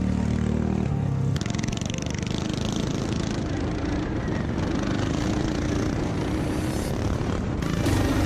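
Racing lawnmower engines running. The sound changes abruptly about a second and a half in, from a steady pitched engine note to a denser, noisier engine sound.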